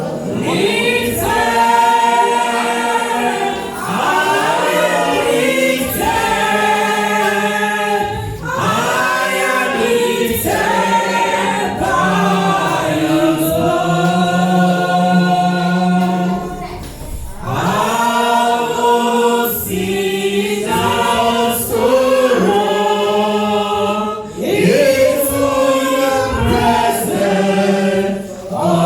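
A group of voices singing a gospel song together in long phrases, with brief breaks between them.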